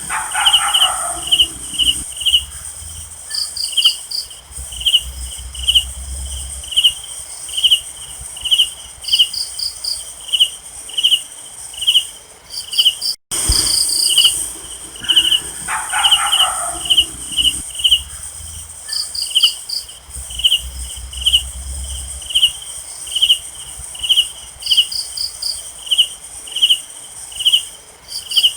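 Night-time insect chorus: crickets chirping steadily at about two chirps a second over a constant high insect drone, with short fast trills in between. A brief lower call comes at the start. About halfway through, a short dropout is followed by the same stretch again, as in a looped recording.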